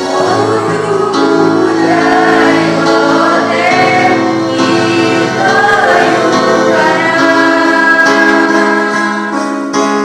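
Vocal group singing a melody together in unison, as one voice part.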